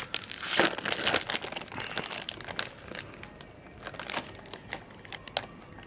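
Snack bag crinkling and crackling as it is handled, busiest in the first couple of seconds, then a few scattered crackles.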